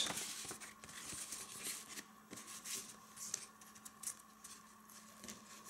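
Faint rustling and scraping of a paper artwork insert being slid back into the clear outer sleeve of a plastic Blu-ray case, with a few small ticks from the plastic.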